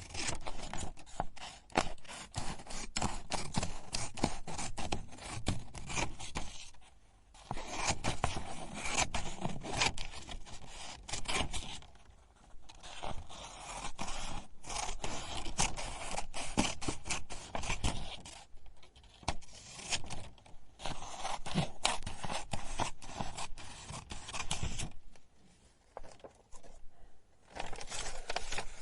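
Scissors cutting paper: runs of quick, crisp snips, broken by a few short pauses.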